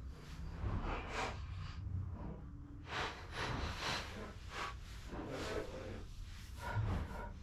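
A man breathing hard and irregularly, quick noisy exhalations through the nose and mouth as he strains to force heavy suspension links into place.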